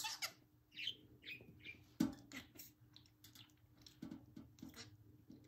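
Budgerigar chirping and chattering in short, quick calls, with a few sharp taps on a wooden cabinet front, the loudest near the start and about two seconds in.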